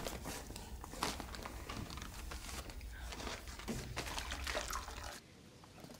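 Faint trickle of water poured from a bottle into a cup; it stops abruptly about five seconds in.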